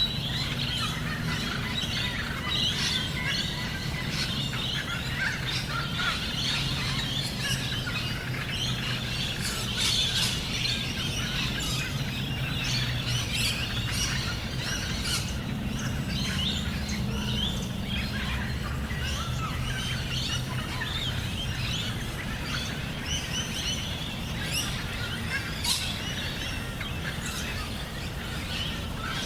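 Many birds chirping and calling at once in a dense, continuous chorus, over a steady low rumble.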